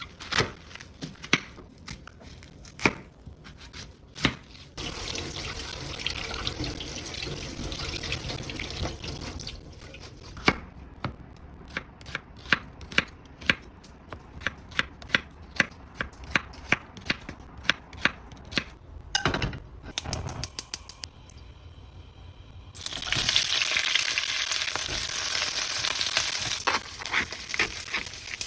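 Kitchen food-prep sounds: a run of sharp knocks about two a second through the middle, then a few seconds of water running from a tap near the end.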